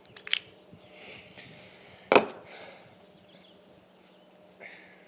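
A couple of quick clicks, then one sharp knock a little after two seconds in, and a fainter knock near the end.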